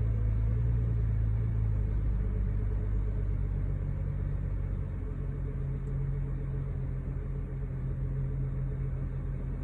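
BMW N55 turbocharged inline-six idling unevenly, its revs sagging over the first few seconds and picking up again about halfway through. This hunting idle is the fault in question, which the owner suspects comes from the spark plugs, PCV valve, throttle body or O2 sensors.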